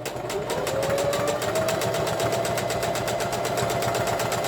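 Electric sewing machine stitching a waistband casing: the motor whine climbs as it speeds up over the first second and a half, then runs steady under a fast, even clatter of needle strokes.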